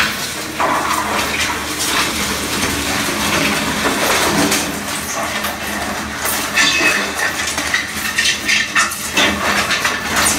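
Steel tracks of a heavy tracked road-building machine clanking and screeching as it moves, with a sustained high metallic squeal about two-thirds of the way through.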